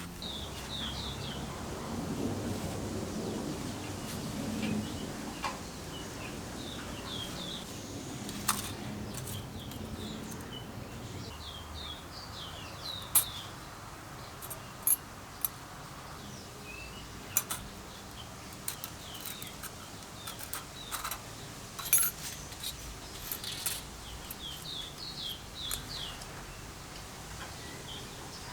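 A small bird chirping in short quick runs of notes, again and again, over scattered sharp clicks and taps. A low rumble sits underneath for the first ten seconds or so.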